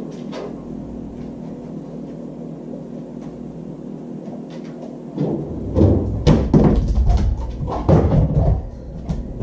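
A dog pulling open a refrigerator door to fetch a water bottle: a quiet stretch with a low hum, then from about five seconds in a run of knocks and thumps as the door and its contents bump about.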